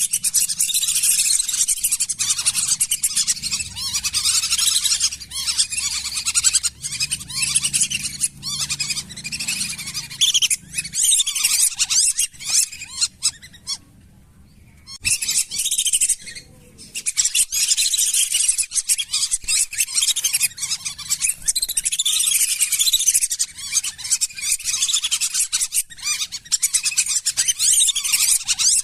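A flock of lesser whistling ducks giving dense, overlapping high-pitched whistling calls, used as a lure call. The calling drops away in a brief lull about halfway through, then resumes.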